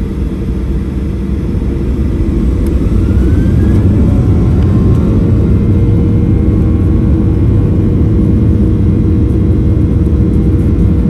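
Boeing 737 jet engines spooling up to takeoff thrust, heard from inside the cabin over the wing. The noise swells over the first few seconds with a whine rising in pitch, then holds as a loud, steady rumble on the takeoff roll.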